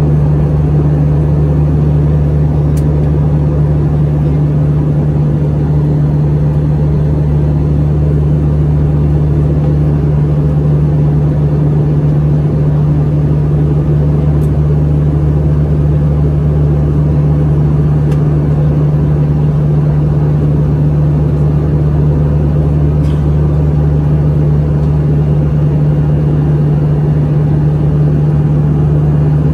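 Steady cabin noise of an Airbus A321 in flight: its CFM56 turbofan engines droning with the rush of airflow, under a strong constant low hum.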